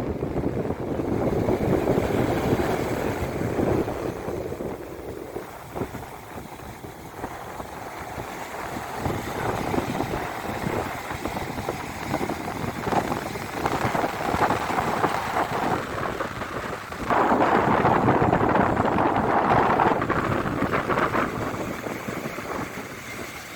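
Sea waves breaking and washing up a beach, with wind buffeting the microphone. The surf swells loudest near the start, then again suddenly about seventeen seconds in for a few seconds.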